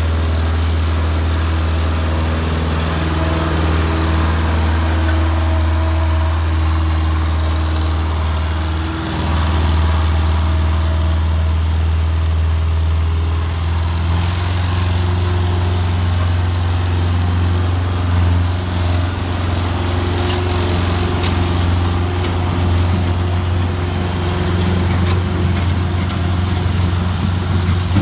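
ASV 4500 skid steer's diesel engine running steadily with a deep, even hum. It dips briefly about nine seconds in, and the engine note rises a little about halfway through.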